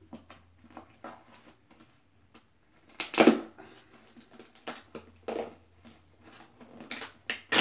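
Small cardboard shipping box being pulled open by hand, its cut flaps rubbing and scraping: scattered rustles and clicks, with a louder scrape of cardboard about three seconds in and a sharp snap near the end.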